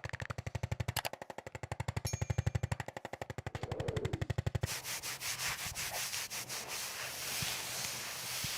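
Handheld percussion instrument tapping rapidly and evenly against the body. About four and a half seconds in, the sharp tapping gives way to a softer, steadier hiss.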